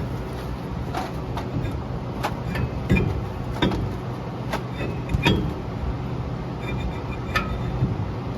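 Brake rotor being fitted back onto the hub over the parking brake shoes: scattered metallic clinks and knocks, a dozen or so, some with a short ring.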